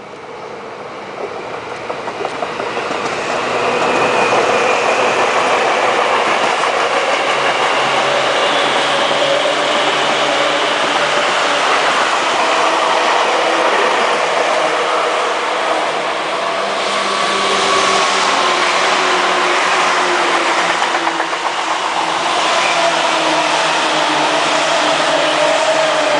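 Seibu Railway electric train running close by: wheels on the rails and the whine of its traction motors. It grows louder over the first few seconds, then stays loud, with motor tones gliding in pitch.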